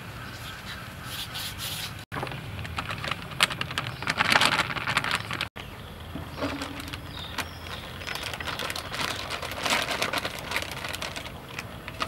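Close handling sounds of food preparation: a knife scraping and peeling bananas and hands working flour in a stainless-steel bowl, with dense, scratchy crackling that comes in clusters. Two brief dropouts, a little after the start and about halfway through, break it.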